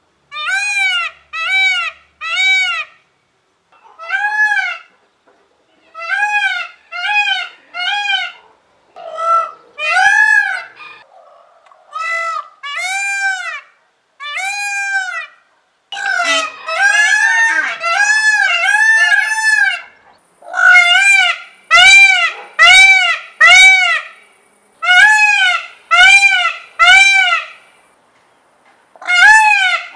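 Indian peafowl (peacock) calling loudly: a string of short, piercing calls that rise and fall in pitch, in quick runs of two to four with pauses between. In the middle the calls crowd together and overlap.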